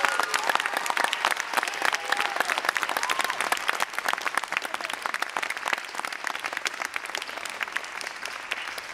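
Audience applauding, the clapping slowly easing off toward the end.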